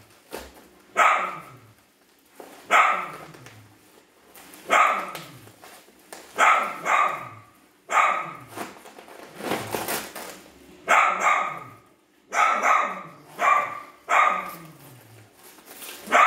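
A dog barking repeatedly, a bark every second or two, some in quick pairs.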